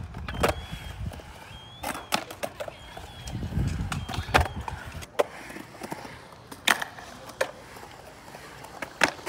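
Skateboard riding a concrete bowl: the wheels rumble on the concrete, with sharp clacks as the wheels and trucks strike the coping and the board hits the surface. The rumble drops away about five seconds in, leaving scattered clacks.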